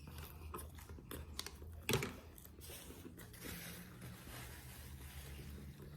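Quiet mouth sounds of someone eating and chewing food close to the microphone, with scattered small clicks and a sharper tap about two seconds in.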